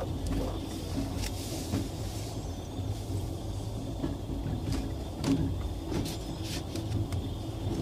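Inside a Rajdhani Express AC 2-tier coach: a steady low rumble with scattered clicks and rattles.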